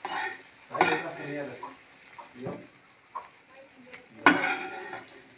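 A spatula scraping and clanking against a ceramic-coated frying pan while fried malpua are lifted out of hot oil, with the oil sizzling. There are several strokes, and the sharpest and loudest comes about four seconds in.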